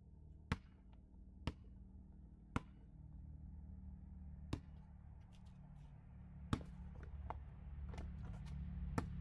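A few faint, sharp knocks at uneven intervals, about six in all, over a low steady hum.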